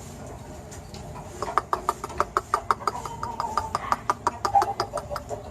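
Chicken giving a rapid series of short clucks, about five a second, starting about a second and a half in and trailing off near the end.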